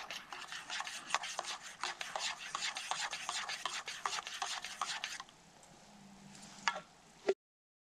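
Rapid scratchy rasping and rustling of hands working at something on gravelly ground, right by the microphone. It stops about five seconds in, leaving a couple of sharp clicks before the sound cuts off.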